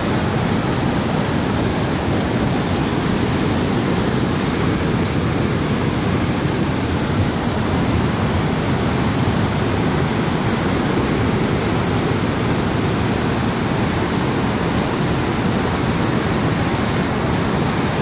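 Steady rushing of water, an even, unbroken noise that does not rise or fall.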